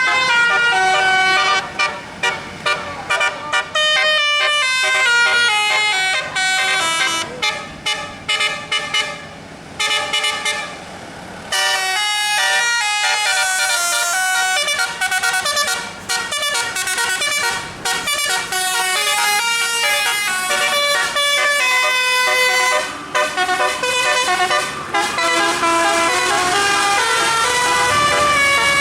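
Bus 'telolet' musical air horn playing a tune, loud horn notes stepping quickly from pitch to pitch, with a few short breaks, the longest about ten seconds in.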